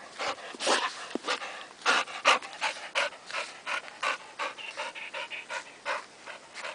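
Dog panting, quick rhythmic breaths about three a second, growing fainter near the end.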